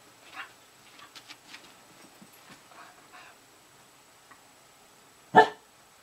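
A brown house dog barks once, short and loud, about five seconds in, after a scatter of faint short sounds.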